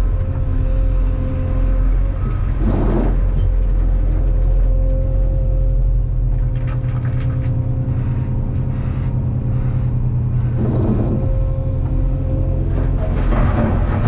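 Cat 390F excavator's C18 diesel engine and hydraulics working under load, heard inside the cab, with a steady hydraulic whine over the engine. Short surges of noise come about three seconds in, near eleven seconds and again near the end as the bucket digs and carries blasted rock to the haul truck.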